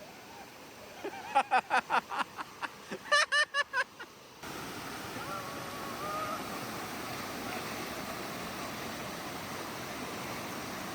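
A quick run of short, loud vocal bursts, then from about four seconds in the steady rush of water flowing over rock in a waterfall stream, with faint distant voices.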